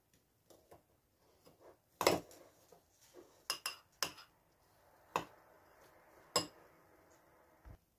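A metal spoon clinking and scraping against a ceramic bowl while butter-moistened biscuit crumbs are stirred. There are about six sharp, separate clinks, with soft scraping between them in the second half.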